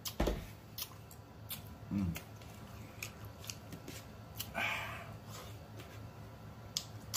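Close-miked mouth sounds of a man eating: wet smacks and clicks as he chews, with a brief low hum about two seconds in.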